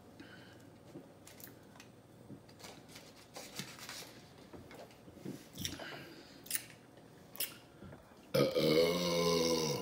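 Quiet chewing with small mouth clicks, then about eight seconds in a long, loud burp.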